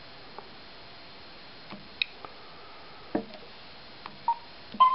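Short electronic beeps from the LK8000 flight computer's airspace SONAR, played through the Medion GoPal navigator's speaker, with scattered faint clicks between them; two beeps come about four seconds in and just before the end. The beeps warn that the glider is close to controlled airspace, about 300 m from its edge.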